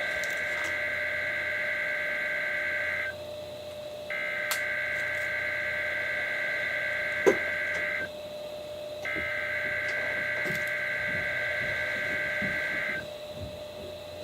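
Three bursts of SAME header data, the buzzy two-tone digital screech that opens a NOAA Weather Radio alert, played through a Realistic 12-181B weather radio. Each burst lasts about four seconds with a one-second gap between them. This is the coded header of the Required Weekly Test. A single sharp click comes about seven seconds in.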